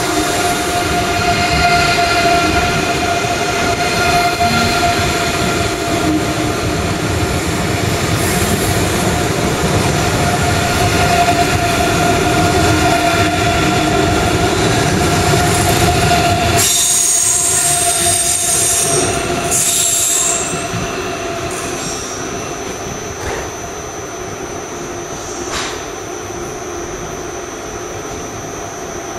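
ICE high-speed train running slowly round a curved station track: its wheels squeal on the curve, a few steady high tones over a loud rolling rumble. The rumble falls away a little past halfway as the train moves off, leaving a thin high squeal and one sharp clank near the end.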